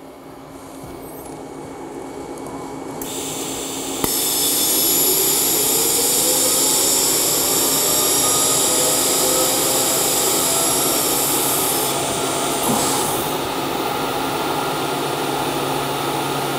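TIG welding arc on thin titanium sheet. A soft hiss builds for a few seconds, then about four seconds in the arc catches with a sudden jump in level. It runs as a steady, loud hiss while a tack is made.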